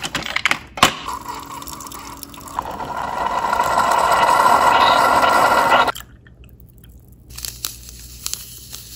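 Single-serve coffee maker brewing into a ceramic mug: a few clicks, then a hiss of coffee streaming and filling the mug that builds over several seconds and cuts off sharply about six seconds in. Light ticks near the end as sweetener is poured from a packet into the coffee.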